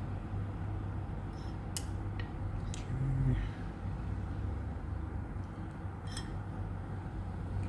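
A few light clicks and taps as small parts from a knob fitting kit are handled, over a steady low hum.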